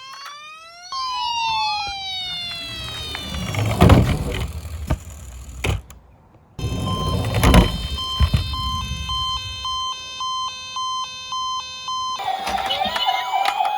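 Electronic toy ambulance siren sounds: a falling wail near the start, then an even two-tone hi-lo siren in the second half, with more wailing near the end. Twice, about four and seven and a half seconds in, the loudest sound is small die-cast toy cars rolling and clattering down a plastic slope.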